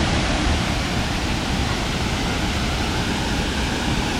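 Waterfall rushing steadily, an even wash of falling-water noise with no breaks.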